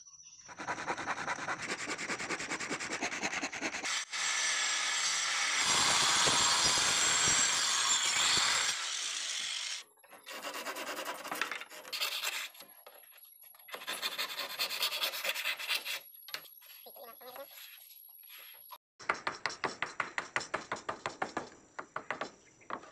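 Handsaw cutting by hand through a hardwood plank, in several stretches of rapid back-and-forth strokes with breaks between them; near the end the strokes come about three or four a second.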